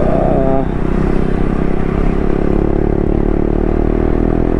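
Motorcycle engine running steadily while riding, with a brief voice in the first half-second.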